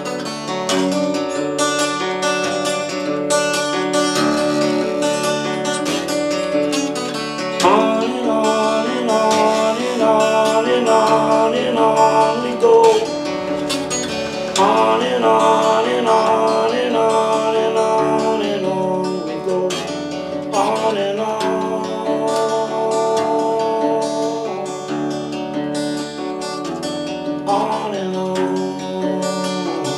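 1920 Gibson L-1 carved-top acoustic guitar strummed and picked in an instrumental passage. A wavering melody line rides over it through the middle stretch.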